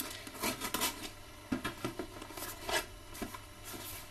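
Cardboard shipping box being handled and cut open with a box cutter: a string of short, irregular scrapes and rubs of blade and hands on cardboard and tape.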